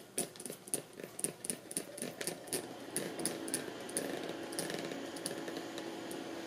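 Trigger spray bottle squirting soapy water in quick repeated pumps, about three to four a second, thinning out after about three seconds. A faint steady hum sets in at about the same time.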